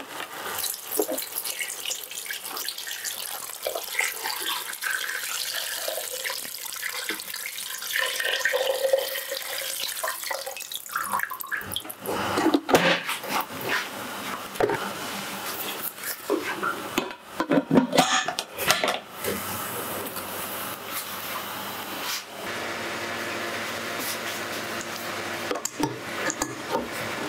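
Metal utensil and lid clatter on a stainless steel pressure cooker, with scattered clinks and knocks among watery, splashing sounds, and a steady hiss over the last few seconds.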